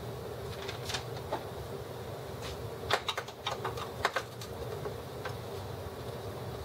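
Plastic housing of an HP Officejet R80 scanner being handled by hand: scattered clicks and taps, most of them bunched together about three to four seconds in, over a steady low hum.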